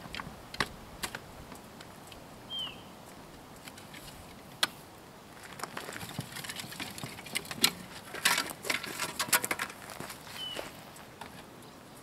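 Dry branches clicking and knocking against each other as they are handled, with a dense run of clatter about eight seconds in. A bird gives a short falling chirp twice.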